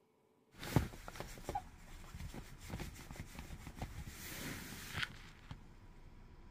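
Another car pulling up and parking alongside in the snow, heard from inside a parked car: a low engine rumble with many sharp crackles and clicks, starting suddenly about half a second in.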